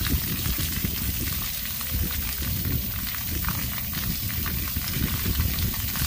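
Splash pad fountain jets spraying water that falls and splashes onto the wet pavement, a steady crackling hiss.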